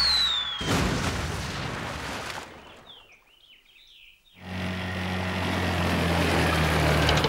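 Cartoon sound effects: a falling whistle over a noisy rush that fades away over about two seconds. A few faint bird chirps follow in a quiet moment, then an outboard motorboat's steady hum comes in about halfway through and grows louder as the boat approaches.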